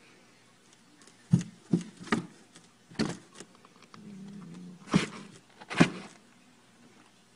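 Sharp knocks and thuds on a cardboard box as cats bat and pounce at each other through a hole in its lid, about six hits spread unevenly over several seconds. A brief, fainter low sound comes between them about four seconds in.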